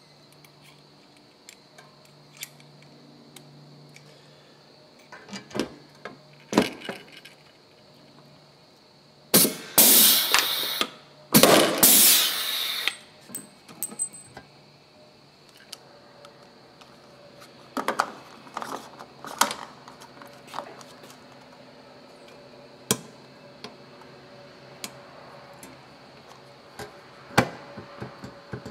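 Clicks, taps and rattles of a car's fuel filler door and small metal parts being handled as the door is swapped. About ten and twelve seconds in come two loud, harsh bursts of tool noise, each lasting a second or so.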